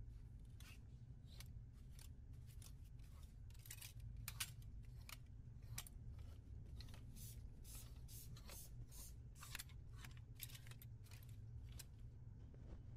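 Needle and thread worked by hand through lining and cloth in quick fell stitches: a run of faint, crisp ticks, about two a second, stopping shortly before the end.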